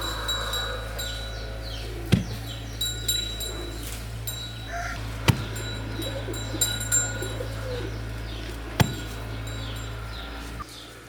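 Small birds chirping with many short, falling chirps. Three sharp knocks come about every three and a half seconds, over a steady low hum that cuts off near the end.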